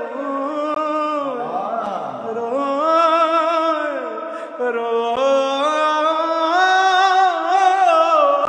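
A man singing a Punjabi song unaccompanied, drawing out long held notes with wavering ornaments and slides between pitches. The line breaks off briefly about two seconds in and again about halfway through.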